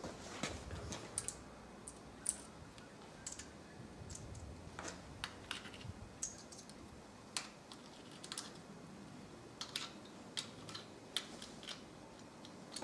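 Scattered light clicks and taps, irregularly spaced, of a hand tool working at the end cover of a Hewland Mk 8 racing gearbox.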